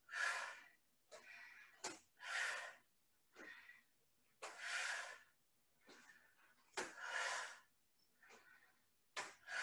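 A woman breathing hard from exertion: four strong, noisy breaths about two seconds apart, with fainter breaths between them and a couple of light knocks.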